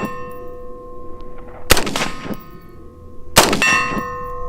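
Two gunshots, about 1.7 s apart, each striking a steel plate target that rings with a steady metallic tone until the next hit.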